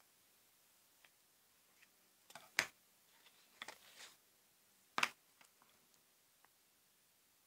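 Light taps and clicks of hands working with scissors, a roll of double-sided tape and a paper strip on a cutting mat, with two sharper knocks about two and a half and five seconds in.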